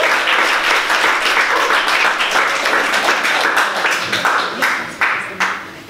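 Audience applauding, many hands clapping together; the applause thins to a few last claps and dies away near the end.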